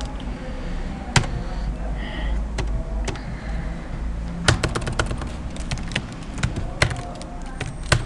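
Typing on a computer keyboard: a rapid run of key clicks starting about halfway through, after a few single clicks in the first half, over a low steady hum.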